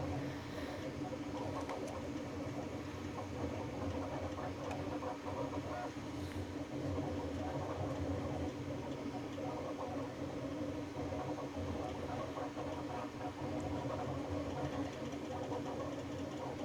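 3D printer running a print: a steady hum with a constant tone, and the busy whirring of stepper motors and cooling fans.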